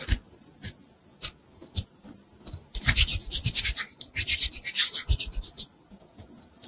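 Soft modelling clay being kneaded and squeezed by hand. A few scattered sticky clicks come first, then about three seconds of dense, crackly rustling as the clay is pressed and worked between the palms.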